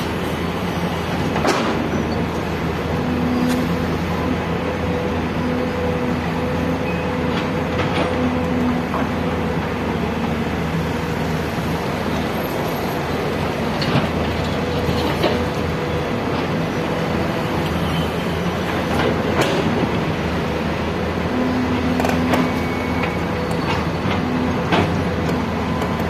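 Excavator's diesel engine running steadily at a working pitch, with occasional sharp knocks.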